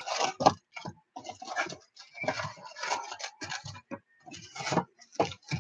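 Donruss football hobby box being unpacked: foil-wrapped card packs crinkling and rustling as they are pulled from the cardboard box and stacked, in quick irregular bursts.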